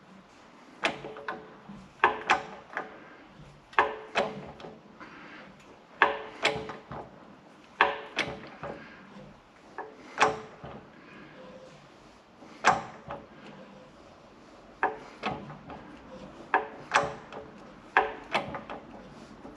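Irregular metallic knocks and clanks, roughly one or two a second, several ringing briefly: metal parts and tools being picked up, set down and knocked together while gear is being readied for the press.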